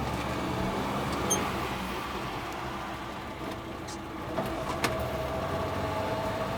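A vehicle running with a steady hum. A higher steady whine comes in about four and a half seconds in, and there are a couple of sharp clicks.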